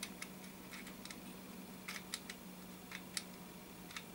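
Quartz clock movement being turned round by hand to sweep the hands, giving irregular light clicks from its gears and setting knob. A faint steady hum lies underneath.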